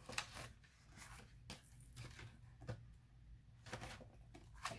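Faint paper handling: sheets of a die-cut cardstock pad being turned and shifted, with several brief rustles and taps.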